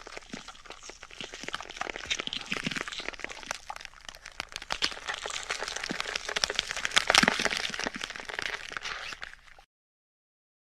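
Gore sound effect of a body being mangled: a dense, irregular run of wet crunching and crackling, loudest about seven seconds in. It cuts off suddenly near the end into silence.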